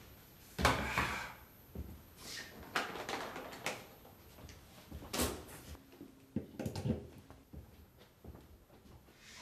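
Scattered knocks, clicks and short rubbing sounds of hard objects being handled, several of them spread unevenly over the stretch, the loudest about a second in and again about five seconds in; no motor is running.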